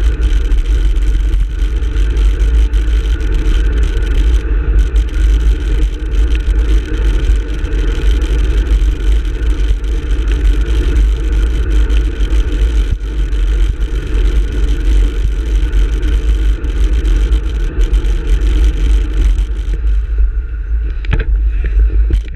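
Wind rushing over a handlebar-mounted camera's microphone on a road bike at speed, mixed with passing road traffic. The rush thins near the end as the bike slows to a stop.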